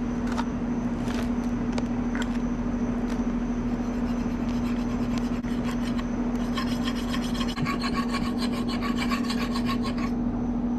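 Clear plastic packaging crinkling and rubbing as a new front shock absorber is unwrapped and handled, with scattered clicks early on and a dense rustle for about three seconds past the middle. A steady low hum runs underneath.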